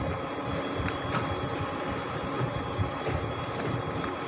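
A boat's motor running steadily with an even low hum.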